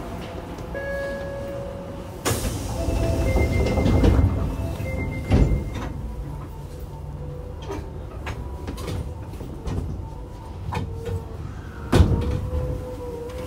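Inside an Osaka Metro 24 series subway car stopped at a station: the passenger doors slide shut with a rumble, short tones and a thud about five seconds in, and the car gives another sharp clunk near the end.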